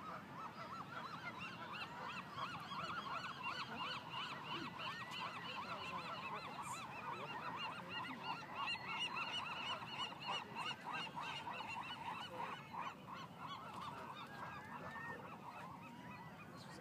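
A colony of gulls calling, many birds at once: a dense, unbroken chorus of short overlapping calls that eases off a little near the end.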